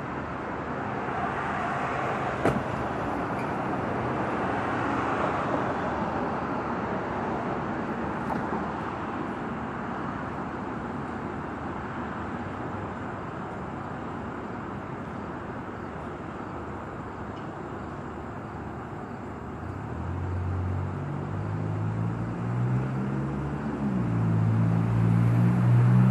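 Road traffic noise: a steady wash of passing-traffic sound, with a motor vehicle's engine growing louder from about twenty seconds in and loudest near the end. A single sharp click a couple of seconds in.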